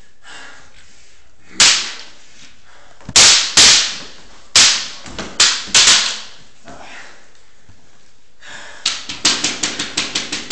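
Wooden practice swords clacking together in a sparring exchange: about six sharp cracks over a few seconds, each with a short echo in the room. Near the end comes a quick run of lighter ticks, about five a second.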